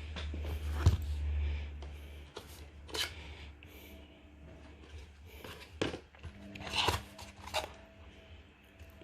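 Handling of a smartphone box and its packaging: scattered clicks, rustles and crinkles as the contents are taken out, with a low rumble in the first two seconds.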